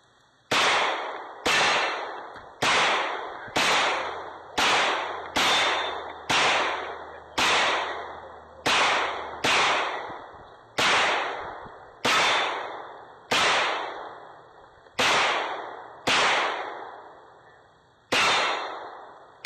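A string of about sixteen gunshots in a practical shooting course of fire, mostly about a second apart with a couple of longer pauses. Each shot ends in a short, fading echo.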